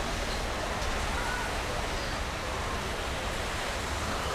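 Steady outdoor ambience of a busy seafront promenade: an even wash of noise with faint, indistinct chatter from a crowd of people.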